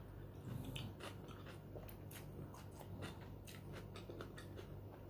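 Faint close-up chewing of a mouthful of beef soto with noodles: irregular wet mouth clicks and smacks.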